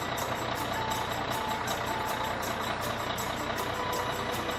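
Bulldozer engine sound effect running steadily at a low, even pace, with a faint regular ticking over the top.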